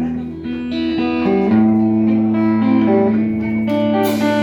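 Live band of electric guitar, bass guitar and drum kit playing the instrumental intro of a slow ballad: sustained guitar chords over a bass line, with a cymbal hit near the end.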